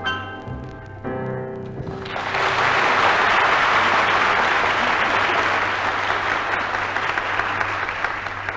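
A small band plays the song's final notes, then audience applause breaks out about two seconds in and keeps going, over a steady low hum from the old recording.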